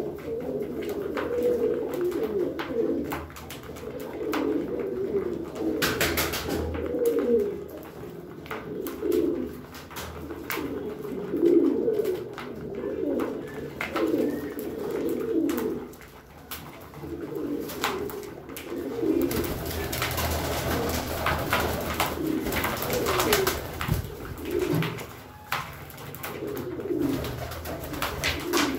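Several domestic pigeons cooing over and over, their low throaty calls overlapping, mixed with scattered sharp clicks. From about two-thirds of the way through, a hissy rustling joins in.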